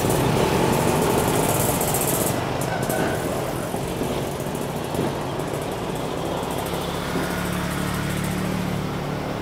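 Road traffic passing close by: cars and a motorcycle driving across a railway level crossing, engines running. A steady low engine hum comes in late on.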